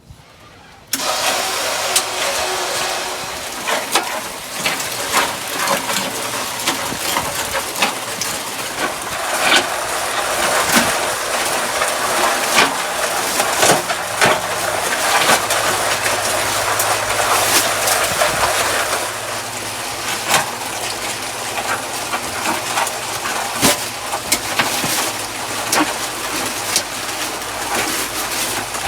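Mud Mixer continuous concrete mixer starting up about a second in and running, mixing dry concrete mix with water, with frequent knocks and rattles throughout.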